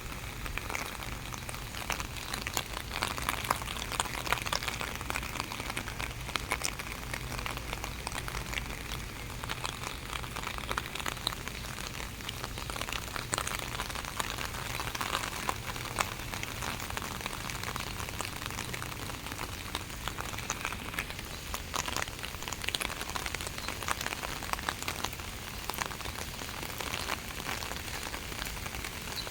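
Steady rain falling, a dense patter of drops striking a surface.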